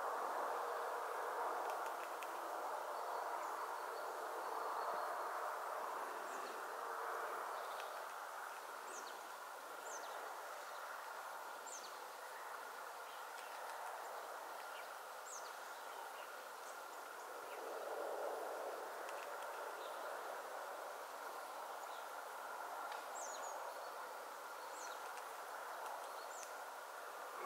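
Small birds give short, high chirps scattered through a steady wash of outdoor background noise that has a faint steady tone in it.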